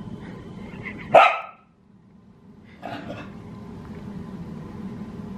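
Australian cattle dog barking during play: one loud, sharp bark about a second in, then a quieter bark around three seconds in.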